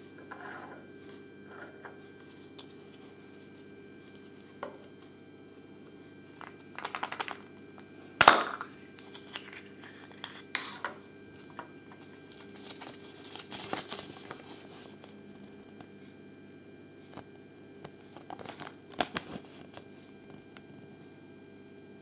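Hands unfolding and handling a small folded paper leaflet from a Kinder Surprise egg: intermittent paper crinkling and rustling, with a sharp tap about eight seconds in, over a faint steady hum.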